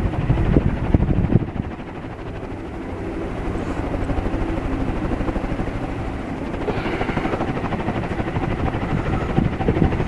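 Tat industrial ceiling fan, with a stamped steel motor and steel blades, running at full high speed. Its blades make a steady, fast, whooshing chop that dips slightly about a second and a half in, then builds back.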